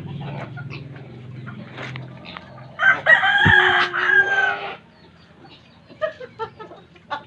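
A rooster crowing once, a loud call of nearly two seconds starting about three seconds in, with chickens clucking before and after.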